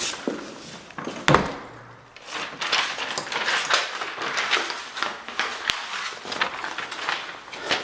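A door clunks once about a second in, followed by irregular footsteps and shuffling on a hard floor.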